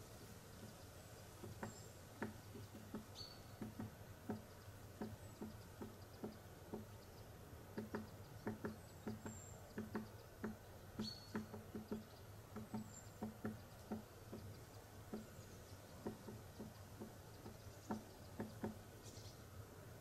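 Quiet summer woodland ambience: irregular soft ticks and taps, about one or two a second, with a few very brief high bird chirps over a faint low steady hum.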